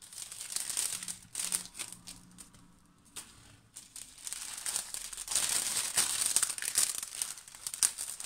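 Large clear plastic bag crinkling and rustling as a stack of scrapbook papers and clear stamp sheets is slid out of it. It eases off a couple of seconds in, then grows louder and busier through the second half.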